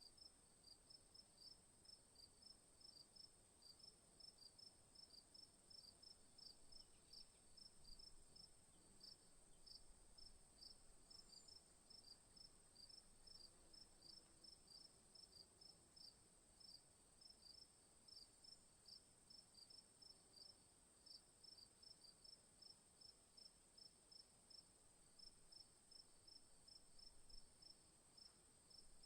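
Crickets chirping faintly in a steady rhythm, about two to three chirps a second, over a continuous high-pitched trill.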